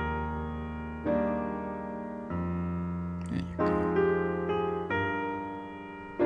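Background piano music: slow chords, each struck and left to fade, with a new chord about every second.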